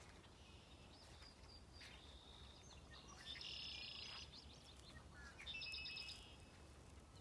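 Faint songbird calls: two short, high trilled phrases about three and a half and five and a half seconds in, with a few softer chirps, over quiet outdoor background.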